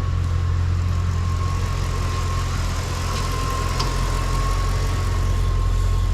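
Ford 5.4-litre three-valve V8 idling steadily, with a thin steady tone over the engine note.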